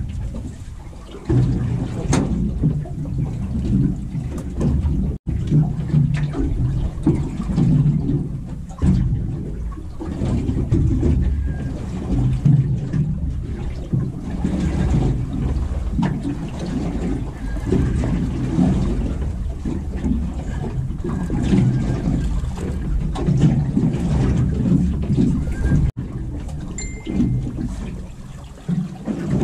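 Low, gusting rumble of wind and water on an open boat at sea.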